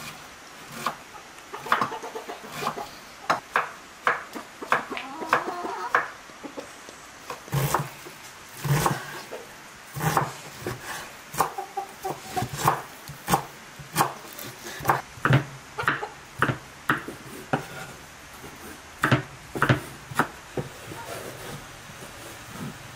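Large kitchen knife chopping raw meat on a wooden cutting board: irregular sharp knocks of the blade striking the board, one to three a second, with wavering chicken-like clucks in places.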